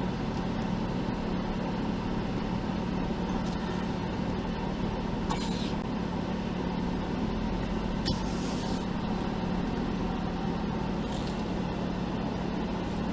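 Off-road vehicle engine idling with a steady drone, with three brief hisses in the middle.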